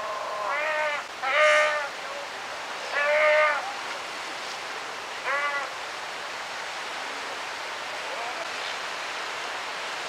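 South American sea lions calling: four wavering calls in the first six seconds, the second and third the loudest, over the steady hiss of surf.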